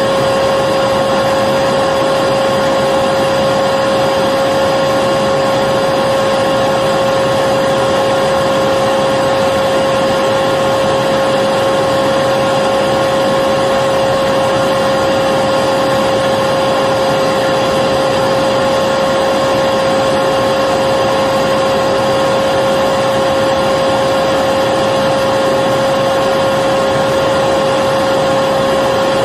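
Vacuum cleaner running steadily, a constant motor whine with a strong hum-like tone over rushing air, with no change in speed.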